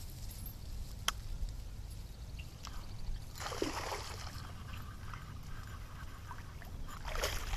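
A hooked fish splashing at the surface of a pond, with one splash about halfway through and another near the end. A single sharp click comes about a second in.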